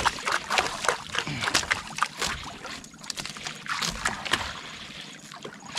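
Water sloshing and gurgling against the hull of a small fishing boat, with irregular sharp clicks and knocks throughout.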